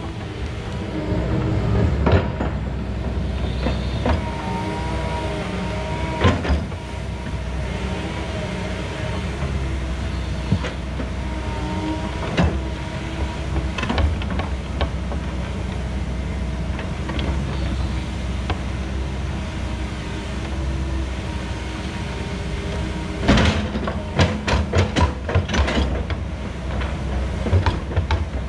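Komatsu 170 excavator's diesel engine running under load, its hydraulics whining in wavering tones as the bucket pushes and spreads dirt. Scattered clanks are heard, with a quick run of knocks near the end.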